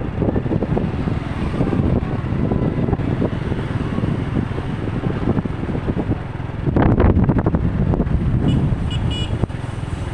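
Road traffic rumbling steadily, swelling louder for a moment about seven seconds in, with a few quick horn toots near the end.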